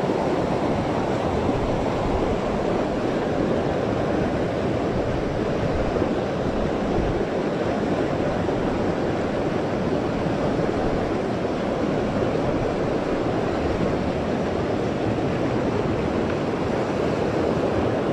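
Fast river rapids rushing over rocks close by, a steady, even rush of white water.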